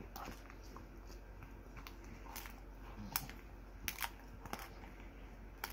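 Pit bull chewing a dried pig ear, with about half a dozen scattered sharp crunches and cracks.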